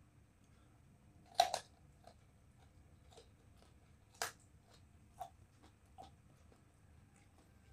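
A person bites into a raw purple eggplant coated in chili sambal and chews it with a crunch. There are two loud bites, about a second and a half in and again about four seconds in, with smaller chewing crunches after them.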